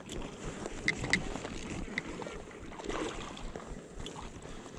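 A hooked pike splashing and swirling at the surface close to the bank, with a few sharp clicks from the spinning reel and wind on the microphone.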